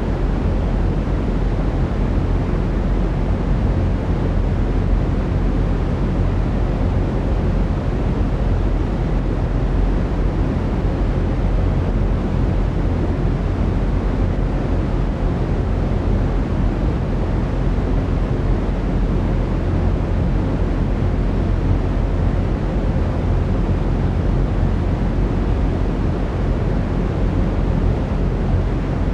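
Steady brown noise: an even, unchanging rush with its weight in the low end, like a deep distant roar.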